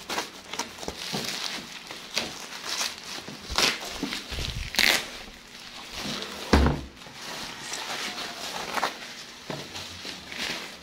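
Bubble wrap and plastic packing film crinkling and crackling in irregular bursts as it is cut with scissors and pulled off a cardboard parcel, with a heavy thump about six and a half seconds in.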